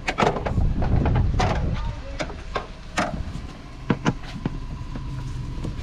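A string of sharp clicks and knocks of tools and plastic engine-bay trim being handled as the cowl cover and its screws are worked loose, over a steady low rumble.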